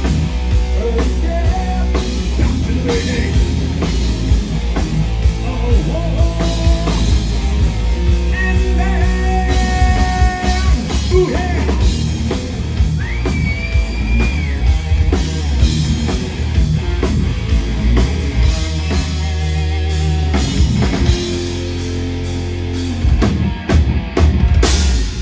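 Live heavy metal band playing loud: electric guitars, bass and a drum kit, with some sung lines, in the closing section of the song. A few heavy hits come just before the end.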